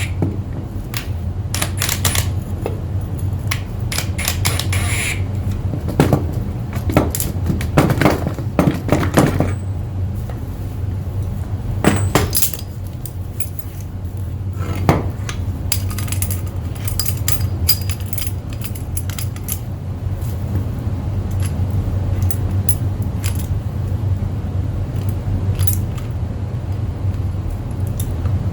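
Metal tools and parts clinking and clanking as they are handled, irregular and bunched in a few clusters, over a steady low hum.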